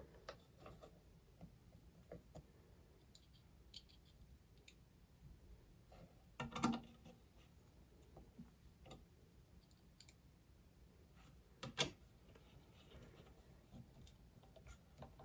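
Faint scattered clicks and ticks of a small screwdriver driving screws back into a Mac mini's internal frame, with two louder sharp knocks, about six and a half and twelve seconds in.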